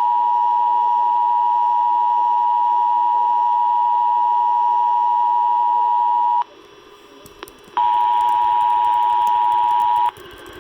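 Emergency Alert System attention tone: a loud, steady high tone. It cuts out about six and a half seconds in, comes back about a second and a half later, then cuts out again near the end, with faint clicks in the gaps.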